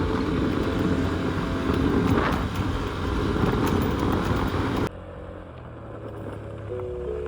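Honda Zoomer 50cc moped riding along, a steady running noise that cuts off abruptly about five seconds in.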